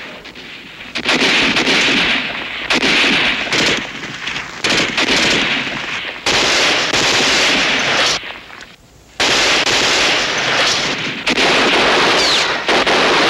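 Sustained battle gunfire: automatic-weapon bursts mixed with rifle shots, loud and dense, with a brief lull about eight seconds in before the firing resumes.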